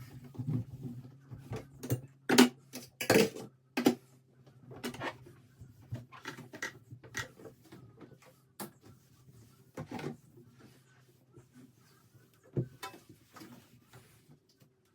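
Scattered knocks and clatters of things being handled and set down, busiest in the first four seconds, over a faint steady low hum.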